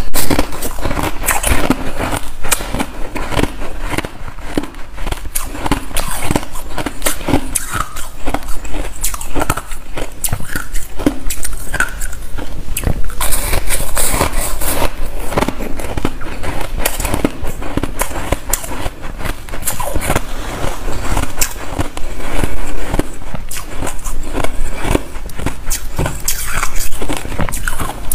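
Balls of frosted white ice being bitten and chewed: a dense, unbroken run of loud crunches and crackles.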